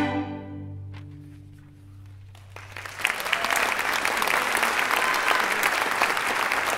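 A string orchestra's final chord rings and fades away over about two seconds. Audience applause then breaks out and carries on steadily.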